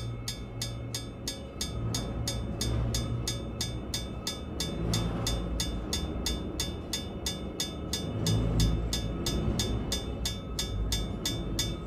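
Even, rapid ticking, about four ticks a second, over a low rumble that swells and fades.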